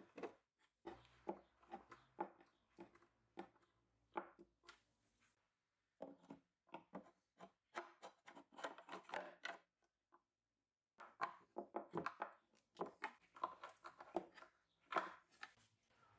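Faint, irregular light taps and clicks of small brass hardware and wood being handled, in three runs broken by two short pauses.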